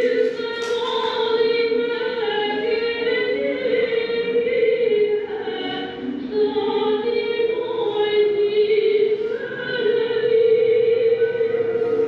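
A choir singing a slow song in long held notes, with no break.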